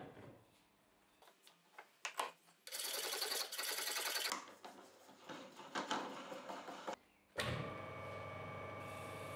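A hand file rasping on the metal coupling nut set in a plywood lathe wheel, in quick strokes, after a few clicks as the wheel is handled. About seven seconds in, the homemade lathe's electric motor switches on and runs steadily, with a high hum.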